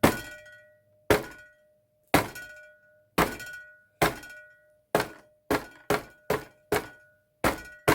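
Repeated knocks of a fist punching at an advent calendar's door to break it open, about a dozen blows, each with a short ringing after it. They come about once a second at first and quicken to two or three a second in the second half.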